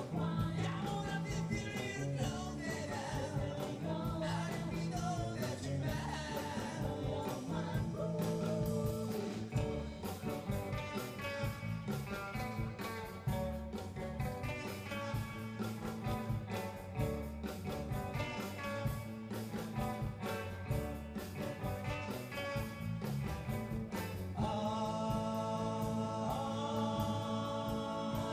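Live band playing a rock song with singing, guitar, bass and drums; about three-quarters of the way through, the band settles into long held chords under the voices.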